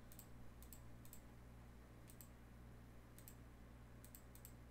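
Faint computer mouse clicks, about eight over a few seconds, several of them in quick pairs, over a steady low hum.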